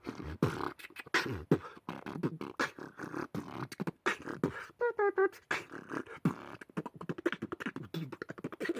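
Rapid, irregular beatbox-like pops, clicks and thumps, several a second, with a short warbling pitched call about five seconds in.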